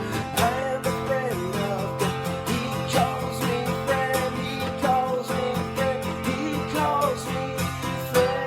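Music: a steadily strummed acoustic guitar with a melody line over it.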